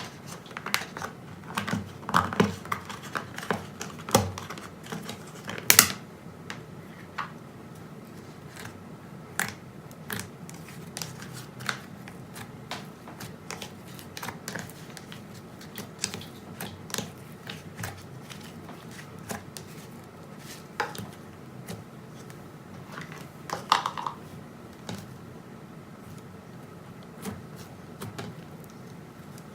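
Slime being pressed, poked and stretched by hand, giving off irregular sharp clicks and pops as air pockets in it burst, thickest in the first few seconds and again near the end.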